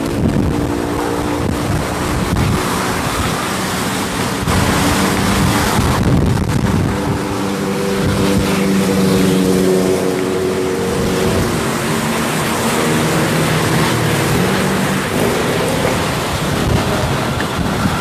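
Strong wind blowing and buffeting the microphone, with a steady engine-like hum of several even tones underneath.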